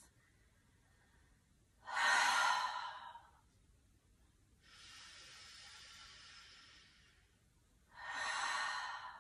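A woman's big audible exhales out of the mouth, like sighs: a loud breathy out-breath about two seconds in and another near the end, with a softer, longer breath between them.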